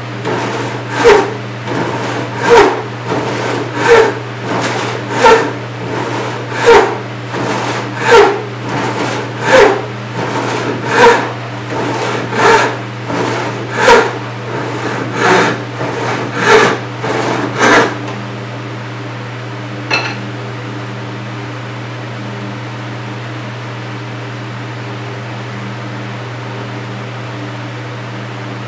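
A 28-inch Disston D8 hand rip saw, 6 points per inch, sawing through 4/4 white oak in a steady rhythm of strokes, about one every second and a half. The sawing stops about 18 seconds in; a single light click follows, and a steady low hum is left.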